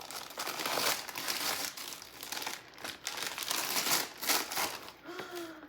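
Gift wrapping paper being torn and crumpled by hand, with a steady run of rustling and crinkling.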